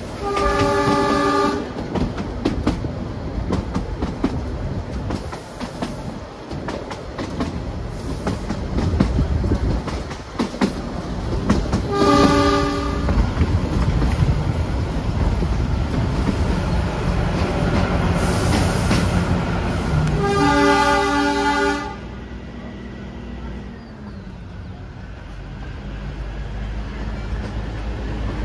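Narrow-gauge toy train running, heard from on board, wheels clicking and rattling over the rail joints. The diesel locomotive's horn sounds three times: once at the start, a short blast about twelve seconds in, and a longer one about three-quarters of the way through. After that the clatter drops away to a quieter low hum.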